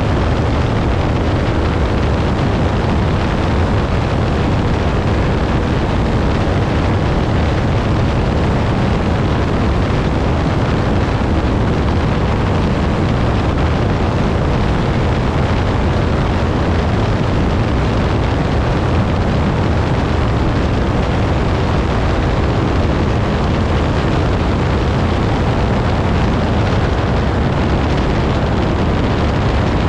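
Piper Pawnee towplane's piston engine running steadily under tow power, with heavy wind noise, an even, unchanging drone.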